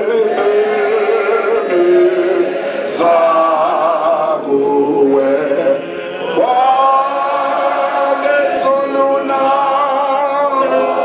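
A church congregation singing a hymn together in many voices, holding long notes that change every second or two without a break.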